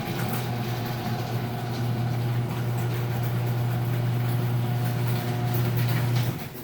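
LiftMaster 3265M chain-drive garage door opener running a door, a steady motor hum with the gears grinding a little and the metal rollers rattling in the track. It cuts off near the end.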